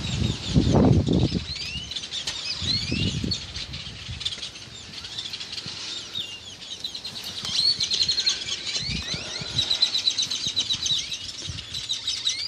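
Small birds chirping, many short rising and falling chirps with a quick run of repeated chirps in the second half. A few low rumbles in the first few seconds, the loudest of them about a second in.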